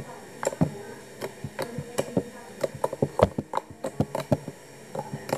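Thick slime being squeezed and poked by hand, giving irregular sticky clicks and pops, several a second.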